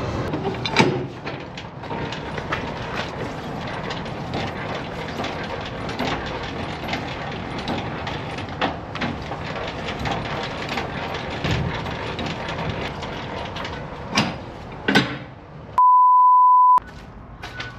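Busy background noise full of small clicks and knocks, with two louder knocks near the end. These are followed by a loud, steady, high single beep lasting about a second, during which all other sound drops out.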